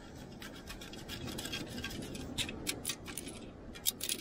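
Sand being shaken and sifted in a beach detecting scoop while a deep target is dug out: a quick run of gritty rattles and scrapes, thickest midway.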